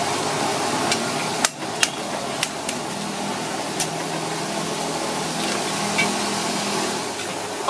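Heavy cleaver chopping through a mud crab on a thick wooden chopping block: about five sharp chops between about one and a half and four seconds in, over a steady background noise.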